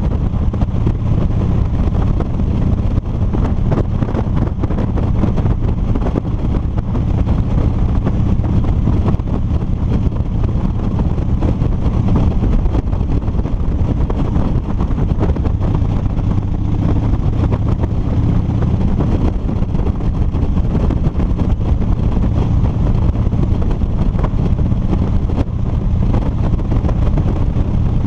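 2007 Harley-Davidson Street Bob's V-twin engine running at a steady cruise, mixed with wind rushing over a helmet-mounted microphone.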